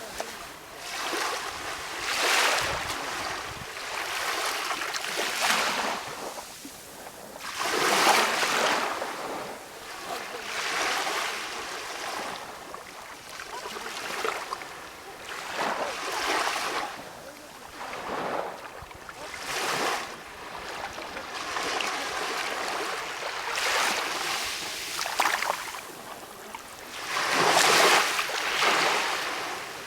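Small sea waves washing onto a shore in a calm sea, each wash swelling and fading every few seconds. The biggest swells come about a quarter of the way in and near the end.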